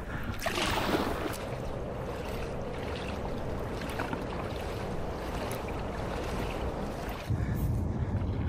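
Kayak paddle strokes and water splashing and rushing along the hull as the kayak moves across calm water. About seven seconds in, a low wind rumble on the microphone takes over.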